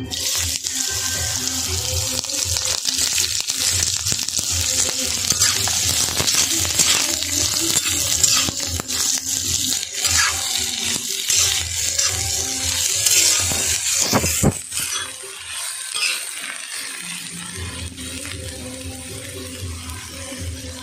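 Cut cauliflower, carrot and potato hitting hot oil in an iron kadai: a loud sizzle starts at once, with a metal spatula scraping and stirring the pan. About two-thirds of the way through the sizzle drops to a quieter, steady frying.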